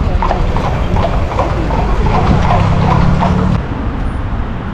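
Horse hooves clopping at a walk on the street, a few strikes a second, with a steady low engine hum of traffic joining about two seconds in. The sound changes abruptly near the end.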